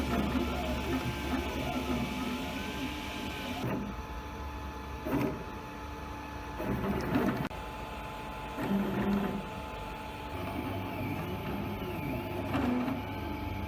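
FDM 3D printer at work: its stepper motors whine in shifting tones, with short rising and falling glides, as the print head moves back and forth laying down molten plastic filament layer by layer.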